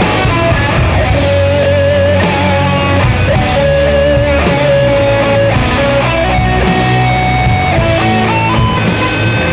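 Doom metal instrumental passage: slow, heavily distorted guitars and bass holding long low notes, with a held, wavering lead melody on top that steps between long notes. Cymbal crashes recur through it.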